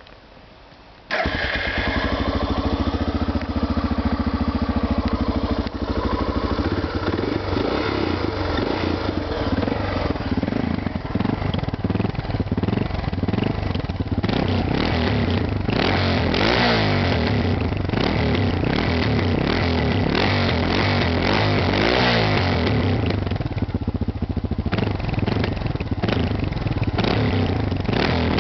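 Suzuki XF650 Freewind's single-cylinder engine starting about a second in through an aftermarket Edhaust exhaust, idling with a low pulsing beat, then revved up and down repeatedly, settling back near the end.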